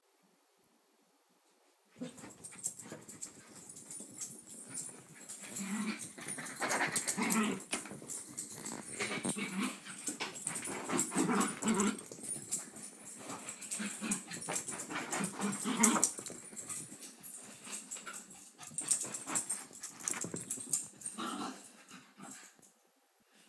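Two small dogs playing: repeated short bursts of play growling and other dog noises with scuffling and clicks. They start about two seconds in and die down near the end.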